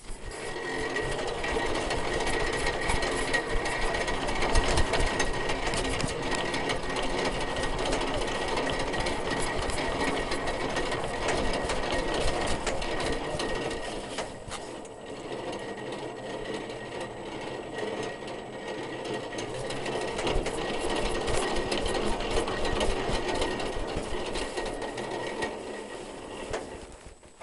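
Machinery aboard a Saladin armoured car running with a fast, even mechanical clatter and a thin steady whine. It starts abruptly and stops shortly before the end.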